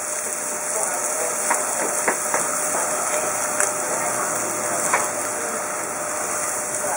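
Scotch fillet steaks sizzling on a hot gas barbecue grill plate: a steady hiss with a few scattered sharp pops and crackles.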